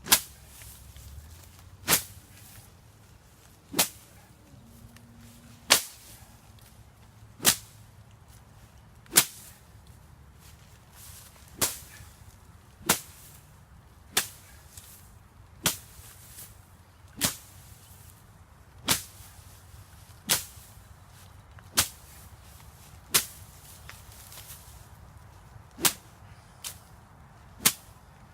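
A green sapling swung hard and whipping down through tall grass and brush, in sharp repeated strokes about every one and a half to two seconds.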